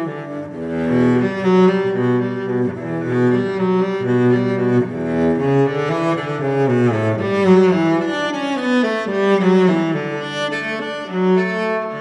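Slow, relaxing background music of long held notes with a string-like sound, some notes gliding downward in the middle.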